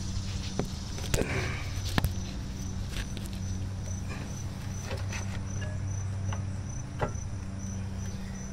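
Insects chirping in an even pulse of about three a second over a steady low hum, with a few light clicks and knocks scattered through.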